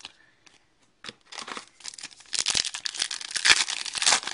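A trading card pack wrapper being torn open and crinkled by hand. The crackling starts about a second in and grows louder.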